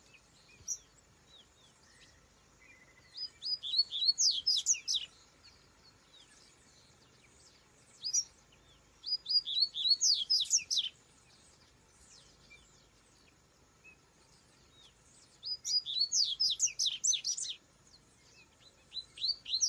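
Double-collared seedeater (coleiro) singing: three song phrases of quick, high, sweeping notes, each about two seconds long and several seconds apart, with a fourth phrase starting right at the end.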